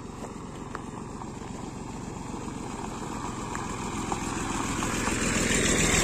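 A small farm tractor's engine running as it drives closer along a gravel road, growing steadily louder until it passes close by near the end.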